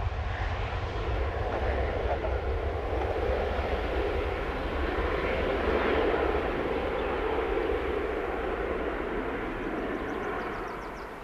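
Boeing 737-800's twin CFM56-7B turbofan engines at takeoff power during the takeoff roll: a steady wide rushing noise over a low rumble. It grows quieter near the end as the airliner rotates and draws away.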